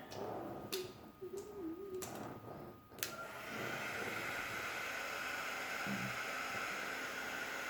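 A few handling clicks, then a heat gun switched on with a click about three seconds in and blowing steadily with a faint whine, heating a covering over the toy's wires.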